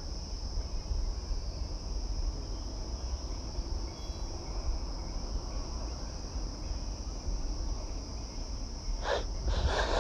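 Steady, high-pitched insect drone over a low outdoor rumble, with two short noisy sounds near the end.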